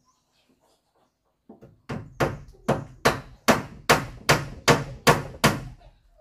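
A hand tool striking repeatedly in a steady rhythm: about ten sharp blows, roughly two and a half a second, starting about a second and a half in and stopping shortly before the end.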